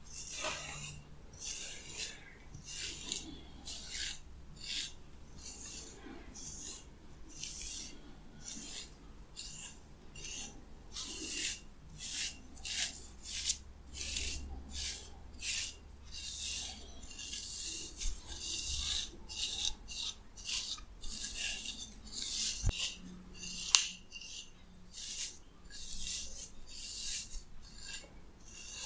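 Pin-bristle hairbrush raked through oiled, wet hair over the scalp close to the microphone: rhythmic scratchy rasping strokes, about one to two a second. Once, late on, there is a sharp click.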